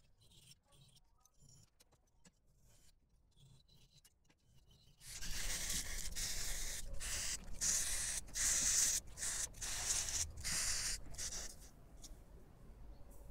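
Hand file rasping back and forth across the edge of a small flat metal part held in a vise. The first strokes are light and faint; about five seconds in they turn loud and quick, about two strokes a second, and stop about a second and a half before the end.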